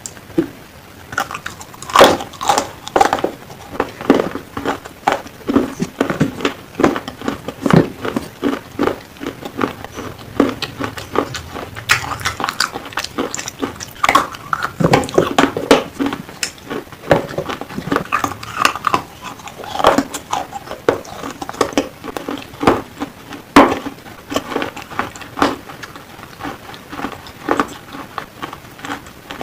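A person biting and chewing black slate pencil, close up: irregular sharp crunches, a few every second.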